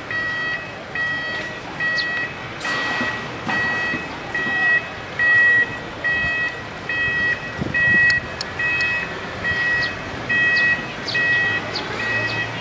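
Electronic alarm beeping, one clear high beep about twice a second, repeating evenly without a break.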